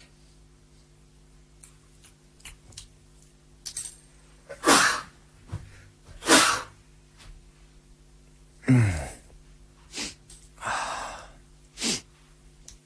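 A person making short, loud breathy bursts: two about a second and a half apart midway, then several more near the end, one with a falling voice. A faint steady hum runs underneath.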